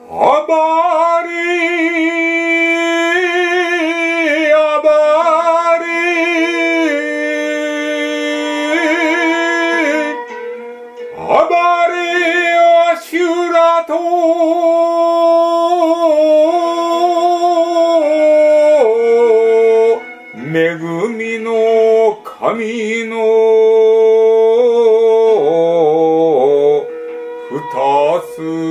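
Male voice chanting in shigin style over a recorded music backing: long held notes with a wide wavering vibrato and slides up into notes, broken by short breaths.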